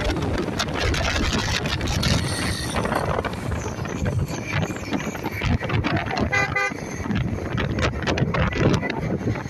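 Road and traffic noise heard while riding, with heavy wind buffeting on the microphone. A vehicle horn toots briefly about six and a half seconds in.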